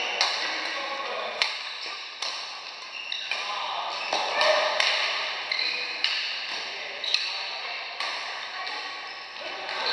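Badminton rally: rackets striking the shuttlecock in a quick exchange, a string of sharp hits roughly one or two a second, each echoing in a large hall.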